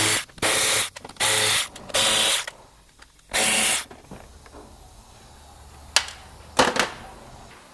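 Cordless ratchet spinning out 8 mm bolts from the underside of a car's front bumper and splash shield, running in five short bursts of about half a second each. Two sharp clicks follow near the end.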